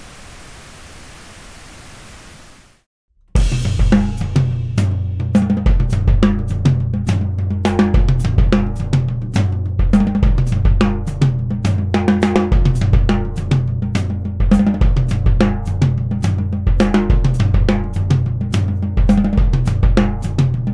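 Steady pink noise for about three seconds. Then, after a brief gap, a recorded drum-kit beat with kick, snare, toms, hi-hat and cymbals, played back through the full set of close and room microphones.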